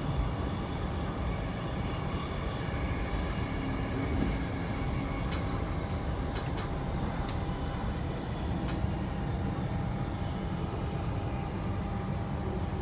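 Inside a Queensland Rail New Generation Rollingstock electric train running between stations: a steady low rumble from the wheels and the track, with a faint steady whine above it and a few light clicks.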